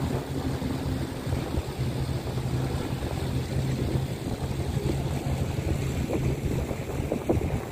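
Jet ski engine running with a steady low hum out on the water, heard from the shore under wind noise on the microphone and small waves washing in.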